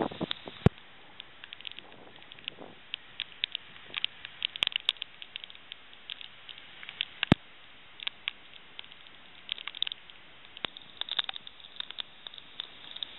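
The first big raindrops of a thunderstorm pattering irregularly as scattered ticks, with two sharper, louder clicks of drops striking close by, about a second in and midway.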